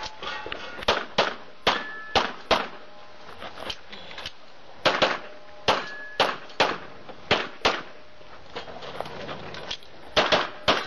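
.40 S&W pistol firing rapid strings of shots, in pairs and runs of three or four, with two pauses of about two seconds between the strings. A short ringing tone follows a couple of the shots.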